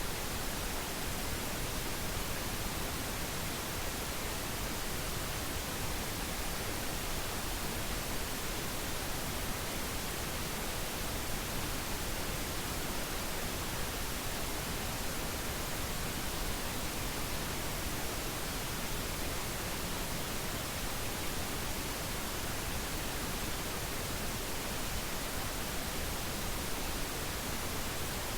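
Pink noise test signal: steady, even hiss with its energy falling off toward the high end at −3 dB per octave, with low-frequency content.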